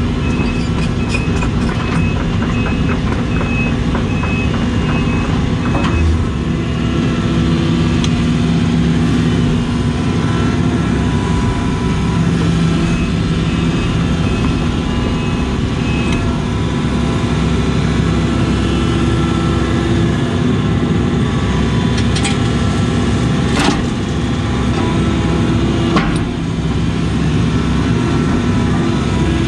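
Case CX80 excavator's diesel engine and hydraulics running under load, heard from inside the cab, its pitch shifting as the boom and thumb are worked. A high pulsing beep sounds during the first six seconds, and a few sharp knocks come near the end.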